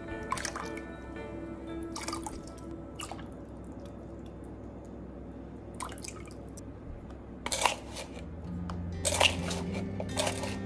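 Soft background music over a handful of short drips, splashes and taps as spoonfuls of liquid seasoning are poured into a bowl of water.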